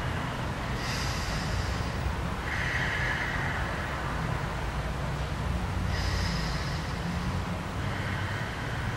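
A person's slow, audible breathing, several soft breaths in and out through the nose a couple of seconds apart, held in a deep yoga forward fold. A steady low room hum runs underneath.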